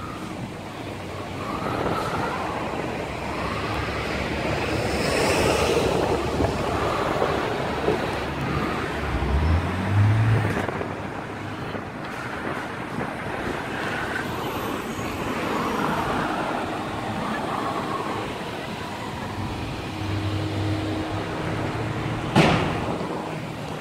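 City street traffic: cars passing and engines running, with one vehicle's engine rising in pitch about nine seconds in. A single sharp click sounds near the end.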